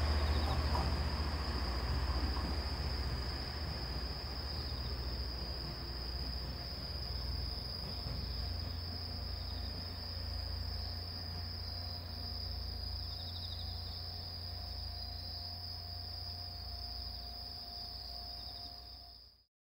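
Insects trilling steadily on one high pitch, over the low rumble of the departed KiHa 40/47 diesel railcars dying away in the first few seconds; the sound cuts off abruptly near the end.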